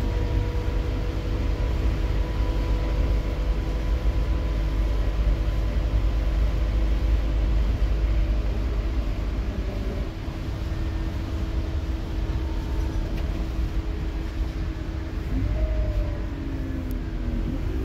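Scania K230UB Omnilink bus's rear-mounted 9-litre five-cylinder diesel engine running under way, heard from the back of the saloon: a heavy low drone with a steady whine over it, easing off a little about ten seconds in.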